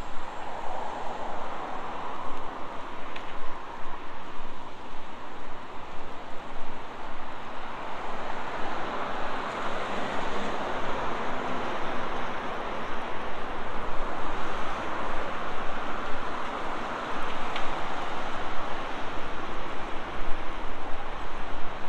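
Road traffic on a multi-lane city street: a steady hiss of tyres and engines that swells and fades several times as cars go past.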